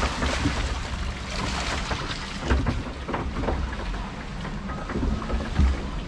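Water rushing and splashing in a log flume's trough around the floating log boat, with a low rumble of wind on the microphone. Several dull thumps come from about halfway through, the loudest near the end.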